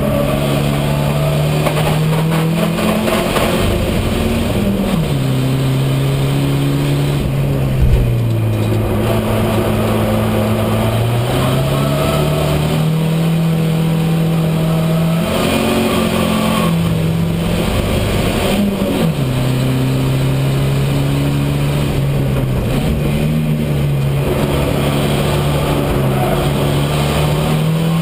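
Racing saloon car's engine heard from inside the cockpit under hard running, its pitch climbing and then stepping down again several times with throttle and gear changes. A brief knock about eight seconds in.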